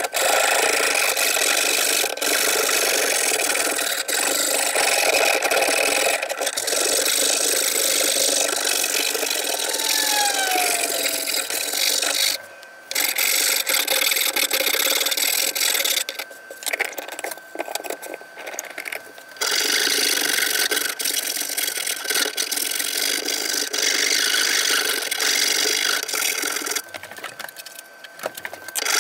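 Hand rasp scraping along the edge of a cypress board in quick back-and-forth strokes, with brief pauses about a third of the way in, for a few seconds past the middle, and near the end.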